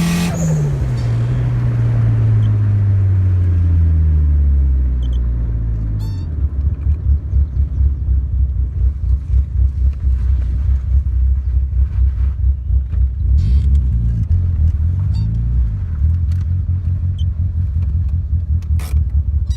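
Mitsubishi Lancer Evolution IV's turbocharged 2.0-litre four-cylinder engine falling back from high revs over about six seconds, then idling with a pulsing beat. About two-thirds in there is a brief small blip of the throttle.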